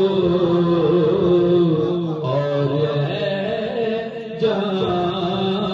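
A man singing a naat, a devotional song in praise of the Prophet, into a microphone, drawing out long wavering notes, with short breaks for breath about two seconds in and again past four seconds.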